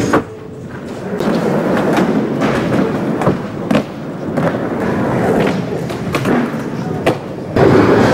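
Skateboard wheels rolling over ramps and floor, broken by several sharp clacks and thuds as the board pops, lands and hits the ramp edges.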